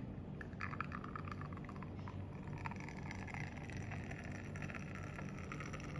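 Espresso trickling and sputtering out of a pneumatic coffee machine during extraction, a crackly hiss that starts about half a second in, with a steady low hum underneath.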